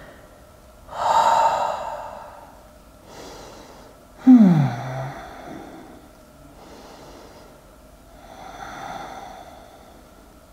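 A woman breathing audibly and deeply, with a strong breath about a second in and another near the end. About four seconds in comes a short voiced sigh that falls in pitch, the loudest sound here.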